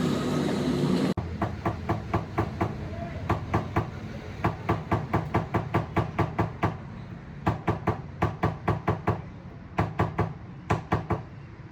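A run of sharp knocks, about four or five a second in several bursts with short pauses between, over a steady low hum. They start just after an abrupt cut about a second in.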